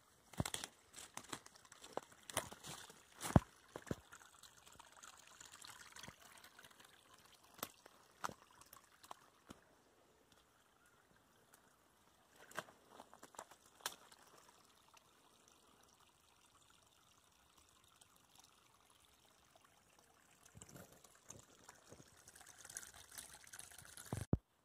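A small forest brook trickling over a little drop, growing louder near the end. Sharp snaps and crunches of footsteps on twigs and leaf litter come mostly in the first few seconds.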